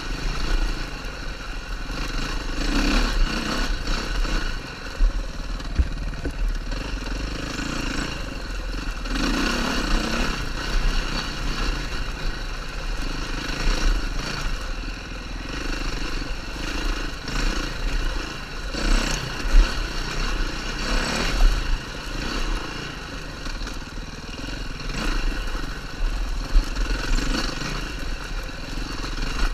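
KTM 530 single-cylinder four-stroke enduro motorcycle engine running as it is ridden, rising and falling with the throttle, with a few sharp knocks.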